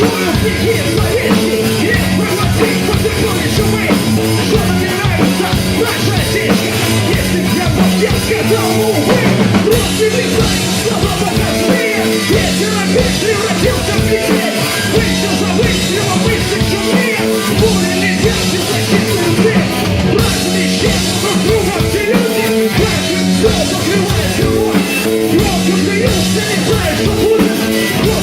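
Rock band playing a loud, fast punk-rock song live, with drum kit prominent.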